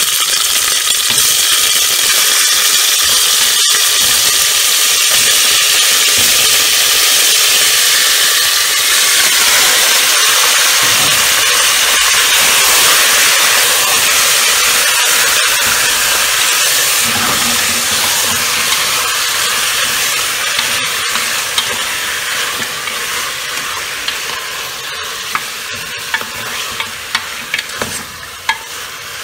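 Raw chicken pieces frying in hot oil in an aluminium pressure cooker: a loud, steady sizzle that slowly dies down over the last third. A wooden spoon stirs and knocks against the pan, with sharp ticks near the end.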